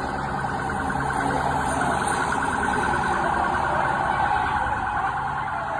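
Electronic siren with a fast warble, growing louder through the middle and fading near the end.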